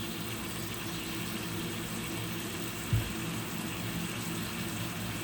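Chopped onions frying in oil in a pan: a steady sizzle over a low, even hum, with one soft thump about three seconds in.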